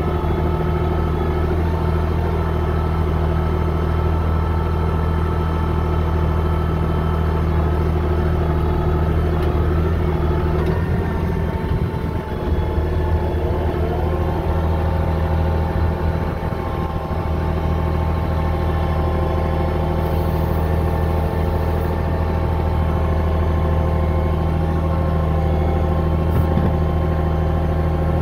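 Bulldozer engine running steadily with a deep, even hum. About twelve seconds in the sound dips briefly, then a higher whine rises a little and holds at the new pitch.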